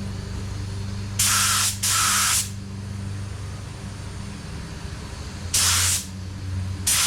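Air paint spray gun firing short test bursts, four hissing blasts about half a second each: two back to back about a second in and two more near the end, while the spray fan pattern is being checked and adjusted. A steady low hum runs underneath.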